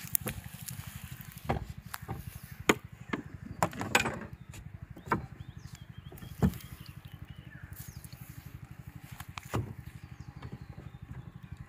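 Irregular hollow knocks and thumps on the wooden planks of a country boat as a barefoot child steps about the deck and sets down a plastic bucket. A steady, rapid low throb runs underneath.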